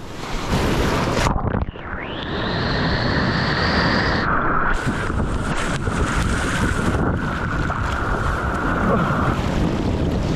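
Shallow surf washing and churning around the wader, with wind buffeting the microphone. About a second in, the sound turns muffled as the action camera is washed into the water, and a thin tone rises and then holds steady for several seconds.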